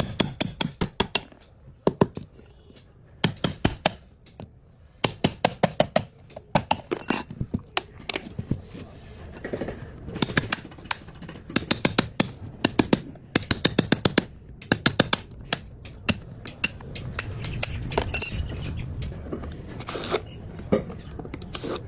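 Runs of rapid clinking taps, hard objects knocking together about eight to ten times a second in short bursts with pauses between.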